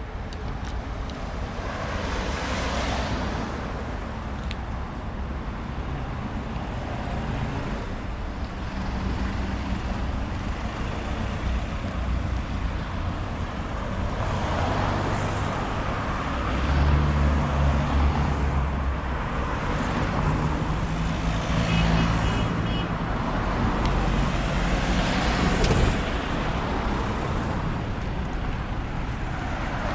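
Motor vehicle traffic: a steady low engine rumble with road noise that swells several times as vehicles pass.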